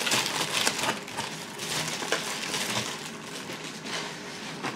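Packing paper crinkling and rustling in short bursts as it is handled and pulled off a boxed item, busiest over the first few seconds, then thinning out.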